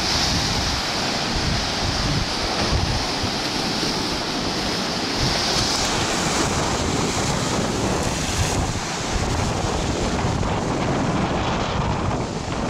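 Rough Black Sea surf breaking and washing on the beach in a storm, with wind buffeting the microphone.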